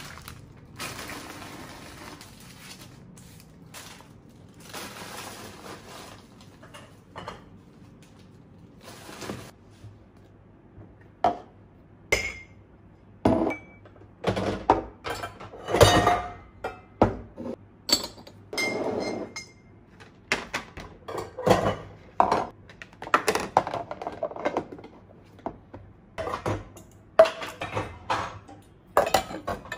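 Crinkling of foil snack wrappers being crumpled and gathered up, followed by a long run of clinks and knocks as ceramic and plastic dishes, cups and containers are picked up and set down, some with a short ring.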